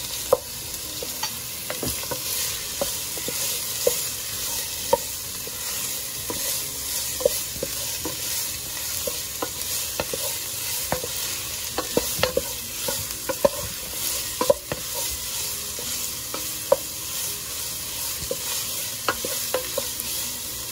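Minced onion, garlic and shrimp sizzling in hot oil in a pot while a wooden spatula stirs them. The spatula makes irregular knocks and scrapes against the pan over the steady sizzle.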